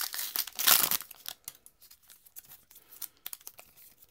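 Baseball card pack wrapper being handled and torn: a loud crinkling rip about half a second in, then quieter rustling and small clicks.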